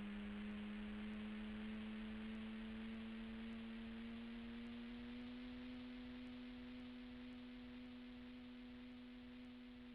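RC plane's motor running at a steady throttle: a steady hum with a hiss above it, its pitch creeping slightly higher over the seconds.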